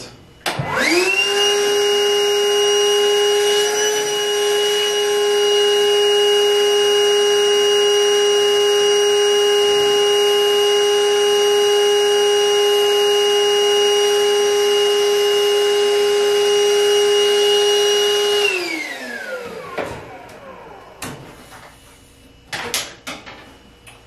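Portable wet/dry shop vacuum switched on and spinning up within a second, then running at a steady whine while its hose draws lint out of a clothes dryer's lint-trap housing. About 18 seconds in it is switched off and its motor winds down, falling in pitch, followed by a few knocks from handling the hose.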